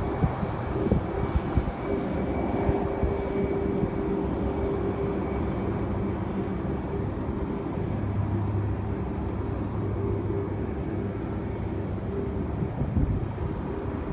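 Boeing 737-8 MAX's CFM LEAP-1B turbofans running at low taxi thrust: a steady whine and hum over a low rumble, with a deeper hum for a few seconds midway as the jet's tail faces the microphone. Wind buffets the microphone at times.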